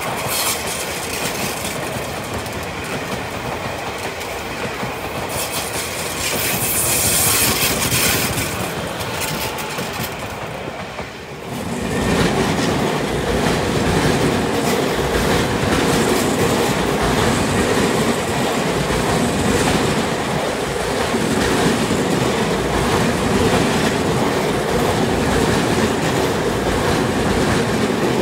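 Tobu 50000-series electric multiple unit running along a curve, its wheels clattering over the rail joints. About twelve seconds in the sound grows louder and lower and stays that way.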